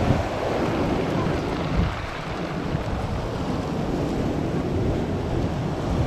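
Sea surf breaking and washing up a pebble beach in a steady wash, with wind buffeting the microphone.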